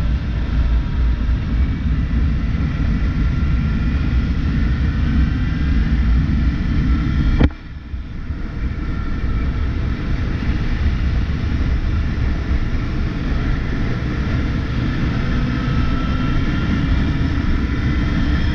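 Suzuki 600 Bandit inline-four engine running under way, heard from the riding bike with the rush of wind and road noise over the microphone. About seven and a half seconds in there is a sharp click, then the sound drops off and builds up again.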